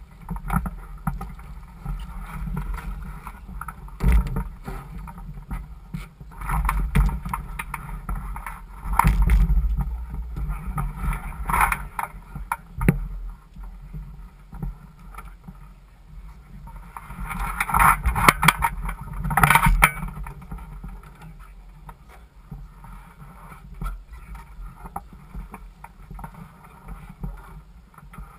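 Laser 4000 dinghy afloat in shallow water while the crew move about it: sharp knocks and rattles from the deck and rigging, with the busiest stretch a little past halfway, over water sloshing against the hull and a steady low rumble on the microphone.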